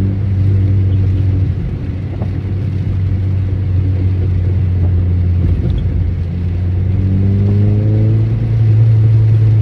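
Cabin sound of a 2013 Honda Civic Si under way: a steady low drone of engine and road, with the engine note rising again near the end. Mixed into it is the intermittent clanking, squeaking clatter that the owner is chasing, which he cannot yet pin on the clutch or the transmission.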